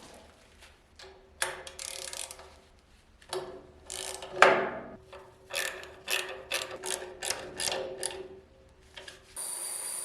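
Hand work on a metal tool: scattered scrapes and clicks, then a quick run of sharp mechanical clicks about three a second. Near the end a steady high hiss with a thin whistle starts suddenly.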